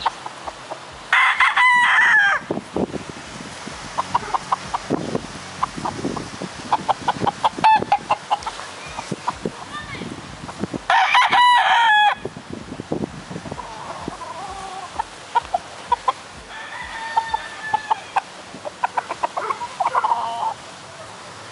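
Six-month-old gamefowl stags (young roosters) crowing. One loud crow comes about a second in and another about eleven seconds in, with quick runs of short clucks between them and fainter calls near the end.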